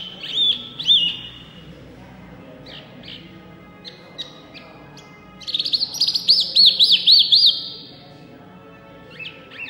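Caged hwamei (wambi mini) singing in loud, lively bursts of rapid looping whistled notes. There is a short phrase at the start and a few soft notes around three seconds in, then a loud run of quick rising-and-falling whistles from about five and a half to seven and a half seconds.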